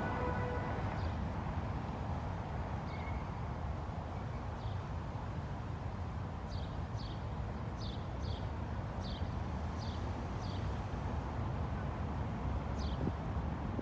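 City street ambience: a steady low hum of traffic, with a small bird giving short, falling chirps, a quick run of them about halfway through and a few more near the end.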